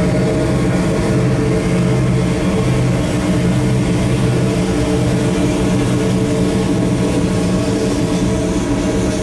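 A CN diesel-electric freight locomotive passing with its engine running under power, a steady low drone, then tank cars rolling past.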